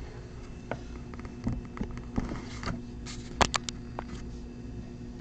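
Handling noise from a camera being picked up, moved and set down: scattered taps and rubbing, with a quick cluster of sharp clicks about three and a half seconds in, over a steady low hum.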